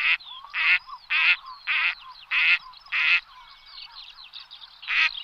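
A duck quacking in a rhythmic series of six calls, about one every 0.6 seconds, then a pause and one more quack near the end. Faint chirps and whistles from other birds carry on underneath.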